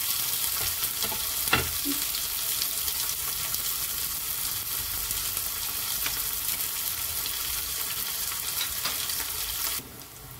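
Chopped onions sizzling in hot oil in a cast-iron kadhai, a steady frying hiss, with one sharp click about a second and a half in. The sizzle cuts off suddenly shortly before the end.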